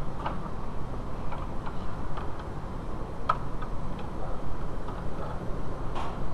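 Scattered light clicks and taps, irregular and a few a second, from a screwdriver and a serpentine belt knocking against engine parts as the belt is worked over the pulleys, the sharpest click about three seconds in. A steady low rumble runs underneath.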